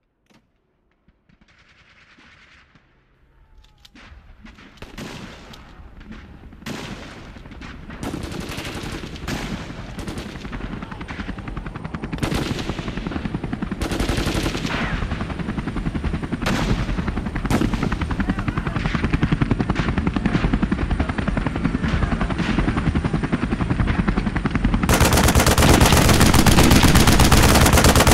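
Automatic gunfire fading in from near silence and growing steadily louder, with sharp single cracks every second or two. About 25 seconds in it jumps to continuous, very loud rapid machine-gun fire.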